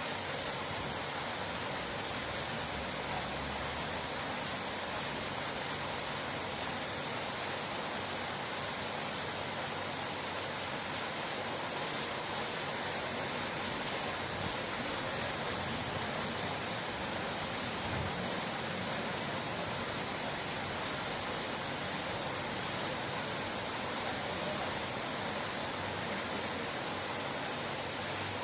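Running water rushing steadily, an even hiss that never lets up or changes.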